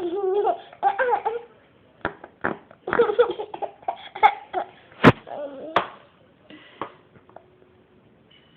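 A young child laughing in bursts of giggles and belly laughs, with a few sharp knocks among them; the laughter dies away about two seconds before the end.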